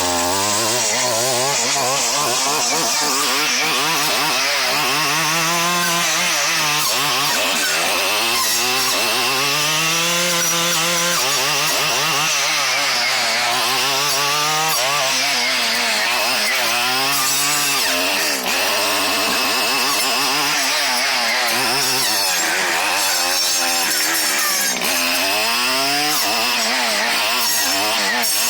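Stihl FS 74 brushcutter's two-stroke engine running hard. Its pitch rises and falls again and again as the chisel-tooth circular saw blade cuts into small pine trees.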